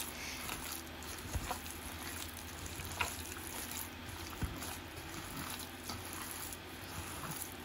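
Minced pork mixed with raw egg and cornstarch being kneaded by a gloved hand in a stainless steel bowl: quiet, wet squishing with a few faint clicks.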